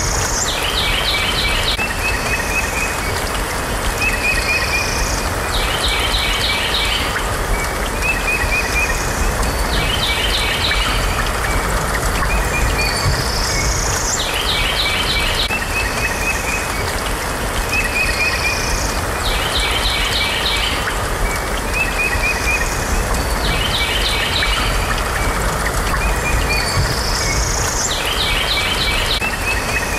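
Looped nature-sound track: a bird-like phrase, a rising whistle followed by a rapid trill and a few short chirps, repeats about every four and a half seconds over a steady rain-like hiss.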